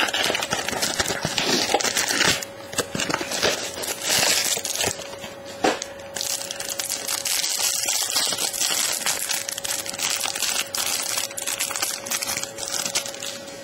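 Foil wrapper of a trading-card pack crinkling as it is torn open and handled, in crackly spurts.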